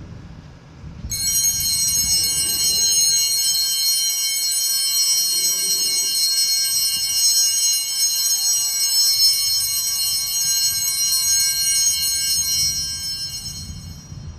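Altar bells ringing continuously for about twelve seconds, a shimmer of many high bell tones that starts about a second in and dies away near the end. The ringing marks the elevation of the chalice at the consecration.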